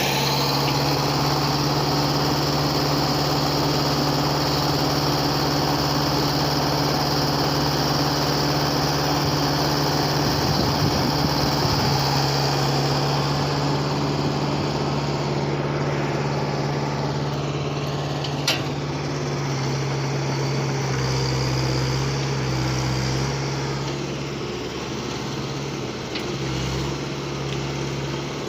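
Diesel engine of a construction machine running steadily with a constant low hum, with a single sharp click about two-thirds of the way through.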